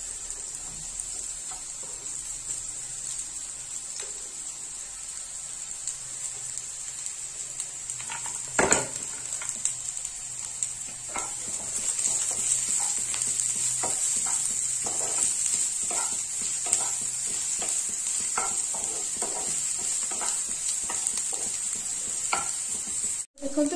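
Diced onions sizzling as they fry in hot oil in a nonstick frying pan, with a wooden spatula stirring and scraping them around the pan; a knock on the pan comes about a third of the way in. The sizzle gets louder about halfway through.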